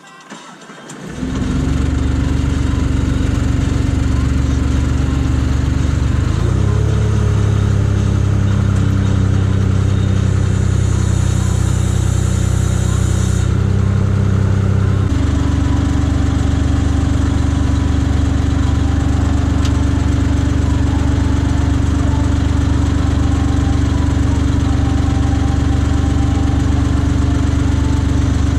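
An engine starts about a second in and then runs steadily, its pitch rising slightly around six seconds in and its tone changing abruptly about halfway through.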